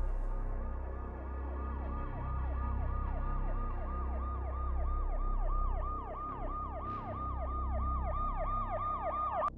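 Emergency vehicle siren in a fast yelp, rising and falling about three times a second, louder in the last few seconds and cutting off suddenly just before the end. A low pulsing drone sits beneath it.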